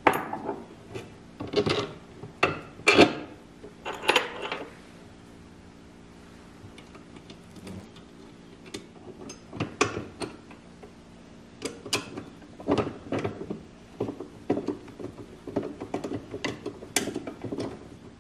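Small screws and metal hardware clinking and knocking on a wooden workbench as they are picked up, then a hand screwdriver driving screws through red PVC guide bars into a metal chainsaw mount, with small ticks and scrapes. The clinks are loudest in the first few seconds, and the screwdriving fills the second half.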